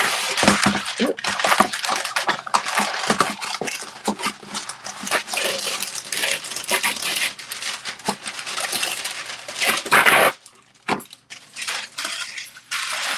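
Busy rustling and clattering of things being handled, dense with quick clicks and crackles, that stops abruptly about ten seconds in, leaving only a few scattered clicks.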